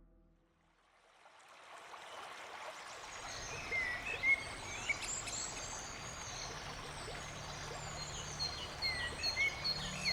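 Flowing river water, a steady rush that fades in over the first couple of seconds, with songbirds chirping repeatedly over it.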